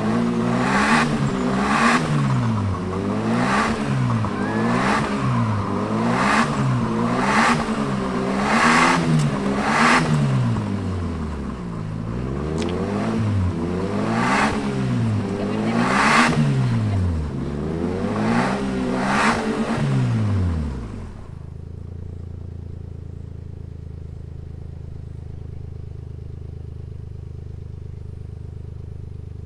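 Suzuki Jimny engine revved hard, its pitch swinging up and down about once a second while a rear wheel spins in the dirt, with a rush of noise at each peak. About two-thirds of the way through the revving stops and the engine drops to a steady idle.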